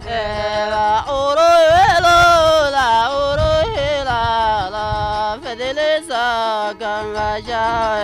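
A man singing a folk melody in a high voice, with long held notes that waver and bend, to a plucked lyre.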